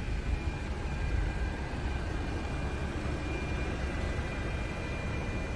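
Steady low rumble with a light hiss and a faint high steady whine; no distinct events.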